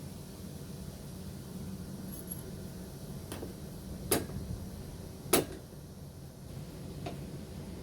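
A few sharp clicks and knocks from working loose the truck's plastic trim and push-pin fasteners, two of them loud and about a second apart, over a steady low hum.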